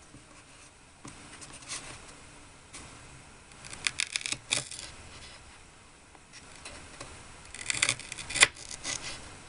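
Small handling sounds of miniature food-making by hand: light clicks, taps and short scrapes of small tools and tiny pieces, in two clusters, about four seconds in and again near the end, where a sharp tap is the loudest.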